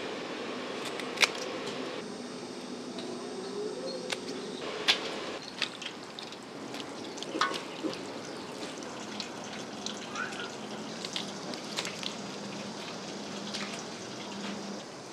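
Water running and dripping from a hose into a steel basin, with sharp irregular clicks of scissors snipping the fins off fresh flying fish and wet handling of the fish.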